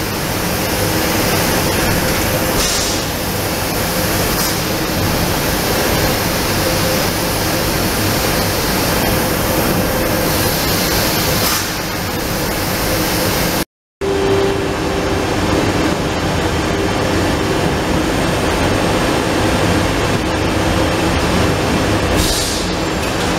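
Trumpf L2530 4 kW CO2 laser cutting machine running while cutting sheet steel: a loud, steady rushing noise with a low hum, broken by short high hisses three times. The sound cuts out for a moment about halfway.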